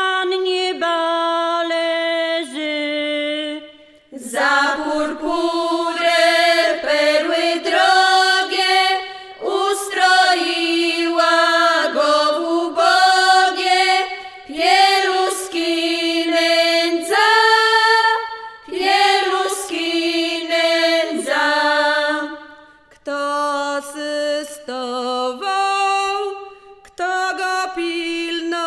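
A group of women singing a Polish Christmas pastoral carol in folk style, in harmony and without instruments. The long held notes come in phrases with short breath breaks between them.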